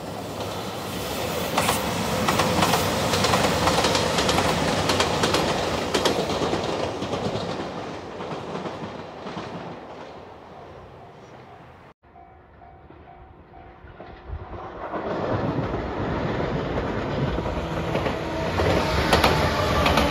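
A JR Shikoku 2700 series diesel limited express passing, its engines and wheels loud for several seconds and then fading away. After a sudden cut about halfway through, a JR 213 series electric rapid train runs past close by, its wheels clattering over the rail joints.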